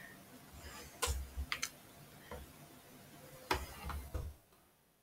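A handful of faint, irregular clicks from a computer mouse and keyboard as text is selected and moved in a form.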